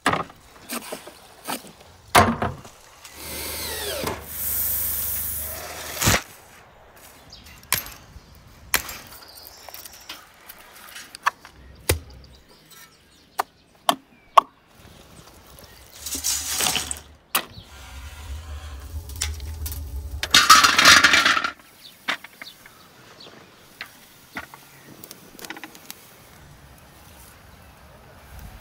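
Hands-on building work: scattered knocks and taps, among them a rubber mallet tapping hollow clay bricks into place, with a few louder bursts of rushing noise that each last one to two seconds.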